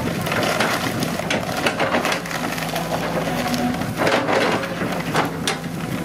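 Excavator engine running steadily under load while wood cracks and splinters in a series of sharp snaps, a tree or stump being broken and torn out.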